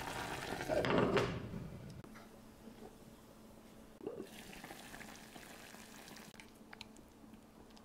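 Sukiyaki broth bubbling and sizzling in a hot earthenware pot, loudest about a second in and dying away after about two seconds. About four seconds in, a brief knock as the pot's earthenware lid is handled.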